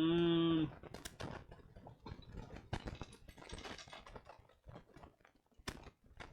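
Small plastic building-brick pieces clicking and rattling as they are sorted, handled and pressed together, many irregular short clicks. It opens with a brief pitched, voice-like sound lasting under a second.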